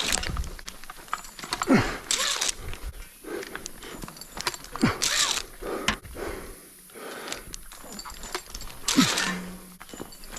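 A climber breathing hard from the effort of foot-locking up a rope: loud exhales about every two to three seconds, several with a short falling grunt.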